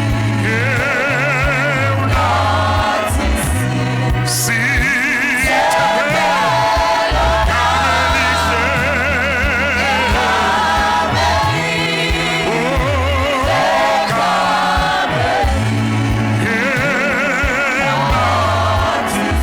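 Gospel choir singing with vibrato over instrumental backing, with a bass line stepping between held low notes.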